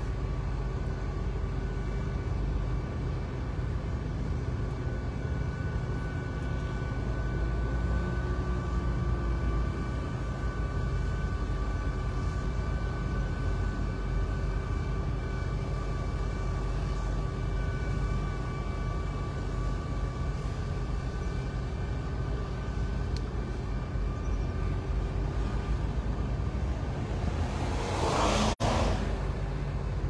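Steady rumble of a car driving slowly on asphalt, heard from inside its cabin, with a faint even hum over it. A brief louder swell of noise comes near the end.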